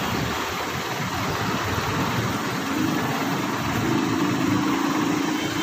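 An engine running steadily, with a low hum that comes in about halfway and rises a little in pitch.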